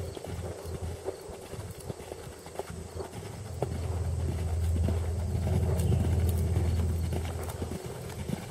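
An Irish Sport Horse mare's hoofbeats on sand arena footing as she moves under a rider, over a steady low rumble that grows louder in the middle.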